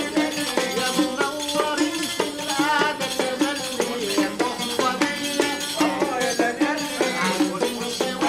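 An oud plucking a lively stepwise melody while a riq, an Arabic tambourine, jingles out the rhythm.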